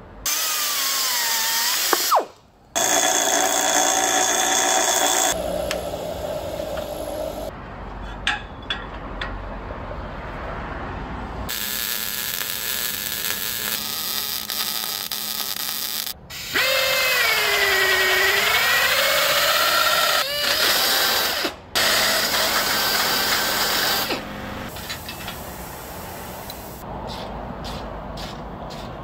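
Shop power-tool work cut together: a pneumatic cut-off tool whines, its pitch sagging and recovering as it cuts steel. In the middle comes a stretch of MIG welding hiss and crackle, and near the end scattered clicks of hand-tool handling.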